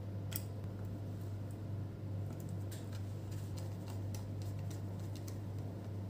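Scattered light clicks and taps of a copper heat-pipe heatsink and fan assembly being seated on a laptop motherboard and a small screwdriver working its mounting screws, over a steady low hum.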